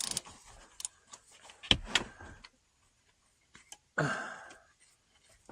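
Scattered metal clicks and knocks of hand tools and nuts on the studs of a VW air-cooled flat-four's oil plate, the loudest knock a little under two seconds in, with a short grunt about four seconds in.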